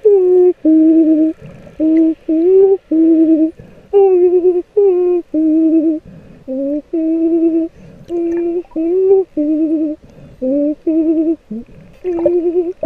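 A person humming a slow wordless tune, heard underwater: a string of short held notes, each about half a second long, with a wavering pitch and some notes sliding up at the start, broken by short pauses.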